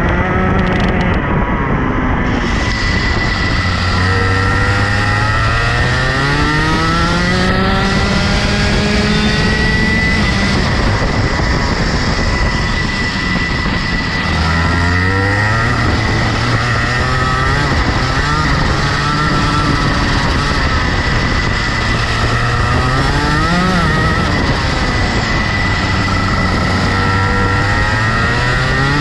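Rotax Max 125 cc single-cylinder two-stroke kart engine heard onboard at race pace, its pitch climbing steadily through each straight and dropping away into the corners, about three runs up the rev range with two drops.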